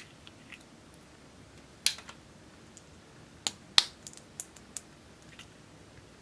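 Slime being handled, giving scattered sharp clicks and pops: one loud one about two seconds in, two more close together past the middle, and a few lighter ticks after them.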